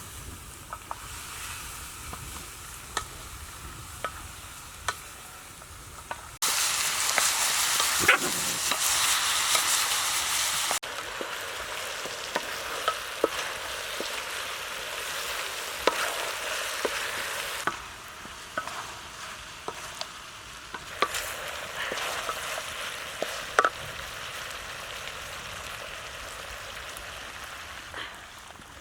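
Food frying in a pan, sizzling steadily, with a utensil stirring and clicking against the pan; the sizzle is louder for a few seconds partway through.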